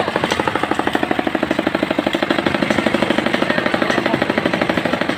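An engine or motor running with a rapid, even chugging of about ten beats a second, steady throughout.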